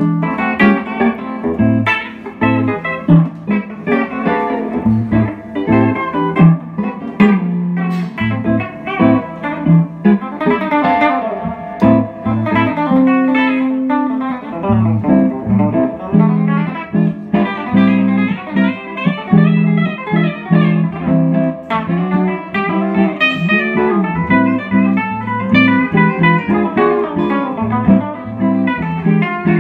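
Two hollow-body archtop guitars jamming together, with a lively run of single notes over lower, steadily moving bass notes and chords.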